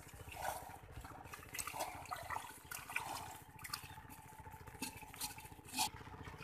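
Hands splashing and sloshing in shallow muddy water, with many scattered short splashes.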